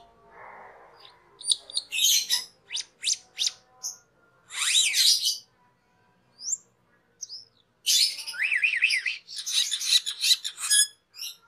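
Asian glossy starling (cucak keling) singing: short phrases of harsh, scratchy calls and sharp thin notes, separated by brief gaps, with a quick run of up-and-down whistles about eight seconds in.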